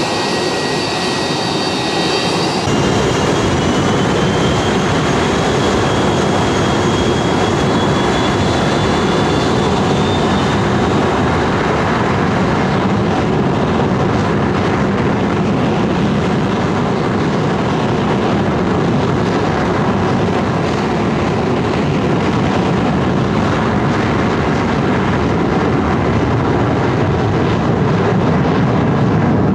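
Rear-mounted Pratt & Whitney JT8D turbofans of a McDonnell Douglas MD-80-series jet running loud and close, a steady roar under a high whine. The whine rises in pitch over the first ten seconds or so.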